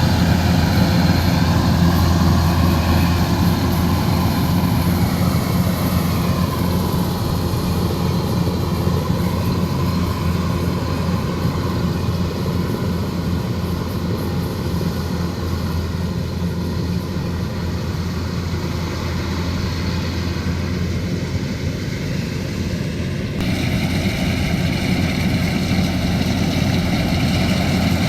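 Kubota DC105X combine harvester's diesel engine running steadily under work with a constant low drone. The sound changes abruptly about three-quarters of the way through.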